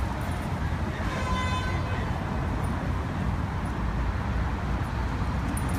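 Steady low rumble of city traffic, with a brief high-pitched tone about a second in.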